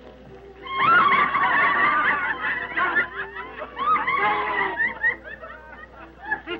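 A group of women and men laughing together, with high-pitched shrieks of laughter. It starts about a second in and thins out into scattered giggles near the end.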